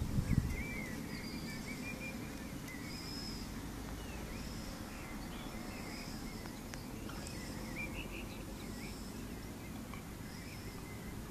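Birds chirping over and over in short high calls, with wavering higher notes in between, over a steady low rumble of wind. A few low bumps come right at the start.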